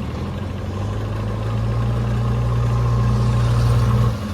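Diesel engine of heavy machinery running steadily, growing louder, then easing off sharply about four seconds in.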